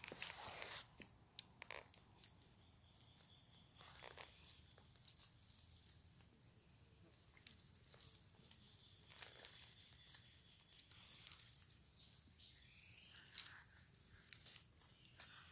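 Faint crackling and rustling of dry bamboo leaf litter as the cats shift about on it while being petted, with a few sharp clicks: two near the start and one near the end.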